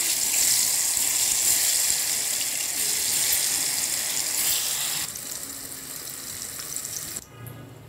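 Cornflour-coated paneer cubes sizzling as they deep-fry in hot oil. The sizzle is loud at first, drops to a lower level about five seconds in, and cuts out near the end.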